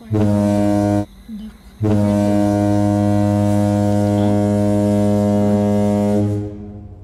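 Ferry's ship horn sounding a deep, steady note: a blast of about a second, then after a short pause a long blast of four to five seconds that dies away slowly.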